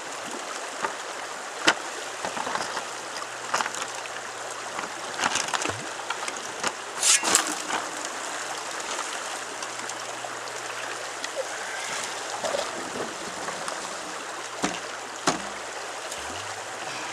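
Shallow river running steadily over a gravel riffle, with scattered sharp splashes and knocks of rock and gear in the water, the loudest cluster about seven seconds in.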